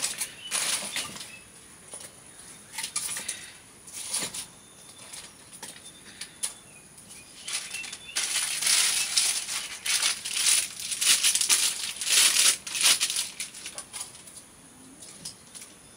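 Irregular bursts of rustling, densest and loudest in the middle stretch, with a faint steady high-pitched buzz underneath.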